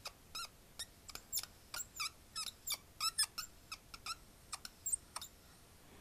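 Dry-erase marker squeaking on a whiteboard in a quick run of short strokes, about three or four a second, some gliding up or down in pitch, as square-wave pulses are drawn.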